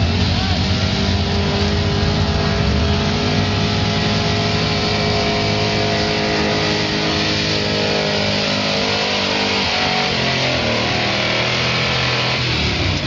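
Chevrolet pulling truck's big-block V8 running hard at high, steady revs under load as it drags a weight sled.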